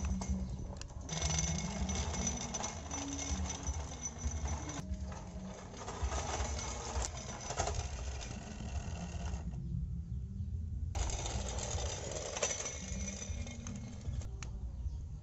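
Small electric drive motor and gearbox of an RC dump truck whirring under load as it tows an RC road roller on a cable. The running sound cuts out for a second or so about two-thirds of the way in, and again briefly near the end.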